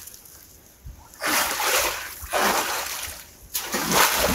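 Water splashing and sloshing in three bursts, each about a second long, starting about a second in.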